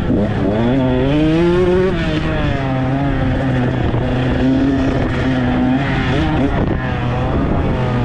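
Dirt bike engine at racing speed, heard from a helmet-mounted camera: it revs up, rising in pitch over the first two seconds, holds fairly steady, then drops and picks up again near the end as the throttle is worked. Wind rushes over the microphone throughout.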